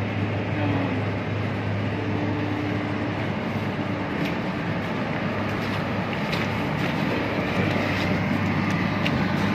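Steady low drone of running industrial machinery, with a constant low hum, and a few light ticks in the second half.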